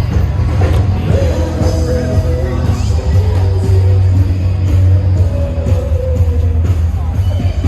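Loud rock music with a singing voice and a heavy, steady bass.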